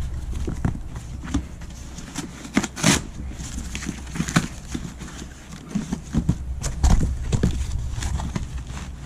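Cardboard box being cut and torn open by hand: irregular rips, scrapes and knocks as the flaps are pulled back, the loudest about three seconds in and again about seven seconds in.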